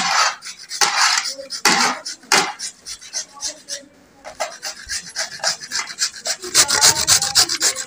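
Raw carrots being grated by hand on two metal graters at once: repeated quick rasping strokes against the blades, with a short lull about four seconds in.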